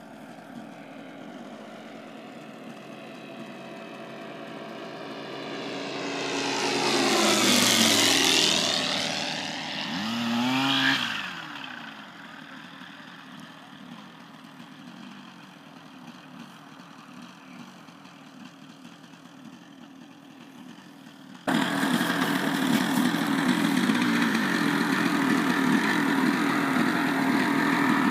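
MPX light propeller aircraft flying past: its engine and propeller drone swells to a peak about eight seconds in, the pitch falling as it goes by, then swells briefly again with a bending pitch and fades to a distant drone. About twenty-one seconds in the sound jumps abruptly to a louder, steady engine run.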